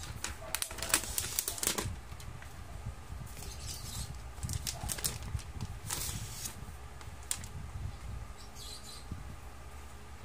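Thin clear plastic protective film crackling and crinkling as it is peeled off a tablet and handled, in several short spells of sharp crackles, densest near the start.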